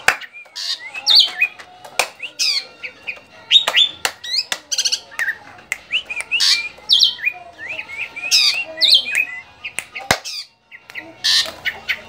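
Caged drongo singing: a fast, varied run of short chirps, whistled glides and harsh notes, mixed with sharp clicks, with a short pause near the end.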